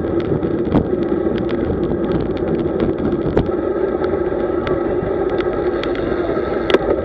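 Steady rush of wind and tyre noise from a road bicycle riding at about 35–39 km/h, with frequent small clicks and rattles and a sharper click near the end.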